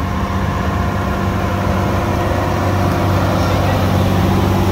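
Tractor engine running steadily at a low, even pitch, growing a little louder toward the end.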